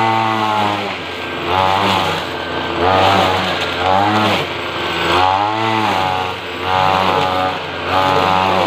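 Petrol string trimmer (whipper snipper) engine revving up and dropping back again and again, about once every second or so, as it cuts along the edges.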